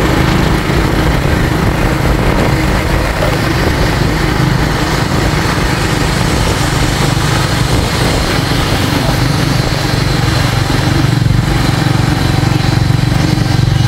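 A small engine running steadily, with no change in speed.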